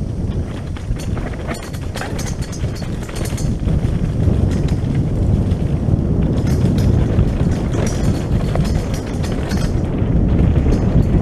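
Wind rumbling on the microphone of a mountain bike moving along a rough dirt trail, with bursts of rattling and clattering from the bike over bumps.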